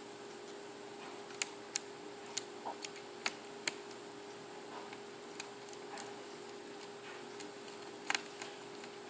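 Small screwdriver driving a tiny screw into a laptop's screen frame: a dozen or so sharp, irregular clicks and ticks of the bit and screw.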